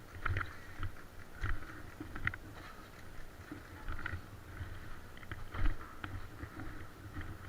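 Irregular footsteps and knocks of people moving over hard ground and rubble, with the rustle of gear. The loudest thump comes about five and a half seconds in.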